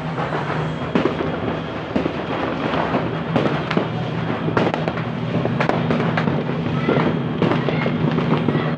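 Fireworks and firecrackers going off all around in a continuous crackle, with louder sharp bangs every second or so.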